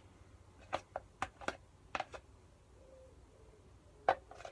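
A metal spoon clicking and scraping against a plastic measuring jug as clear glue is scraped out: a few short sharp clicks in the first two seconds and one more near the end.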